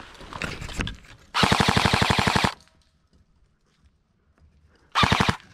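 Airsoft electric rifle firing on full auto: a burst of about a second at roughly thirteen shots a second, then a short burst of about five shots near the end.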